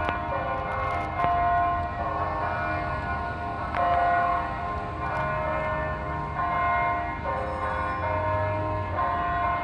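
Cathedral tower bells pealing: several bells of different pitches struck one after another, a new stroke about every second or so, each ringing on under the next.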